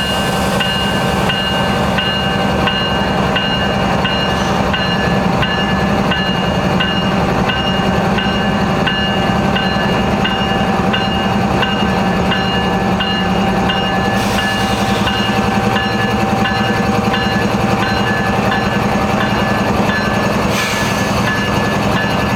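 Diesel freight locomotive rolling slowly past with its engine rumbling steadily, under a high ringing tone that pulses about twice a second.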